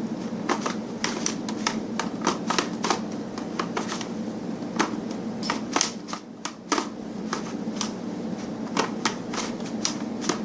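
A giant Rubik's cube clicking and clacking irregularly as its layers are twisted by hand, several clicks a second, with a short lull about six seconds in.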